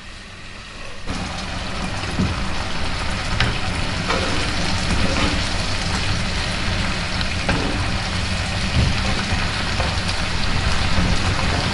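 Red onion, speck and walnuts sizzling in a frying pan over a high flame as splashed white wine boils off (deglazing). A wooden spatula scrapes and taps the pan as it stirs. The sizzle jumps up about a second in.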